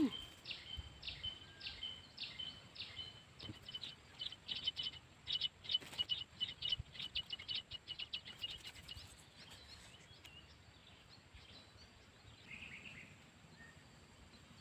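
A bird calling outdoors: a run of short high notes that start slowly and speed up, then stop about nine seconds in. A softer call follows near the end.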